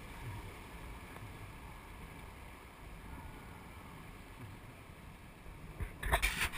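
Rushing whitewater of a river rapid around a raft, a steady noisy wash, with a brief loud burst of noise about six seconds in.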